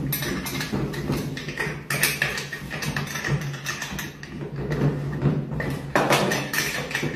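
Irregular clicks, knocks and clatter of small hard parts being handled and set down as a practice assembly is taken apart by hand, over a steady low hum.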